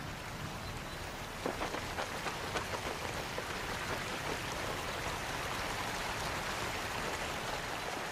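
Steady hiss of water, with a quick run of sharp ticks starting about a second and a half in and lasting about three seconds.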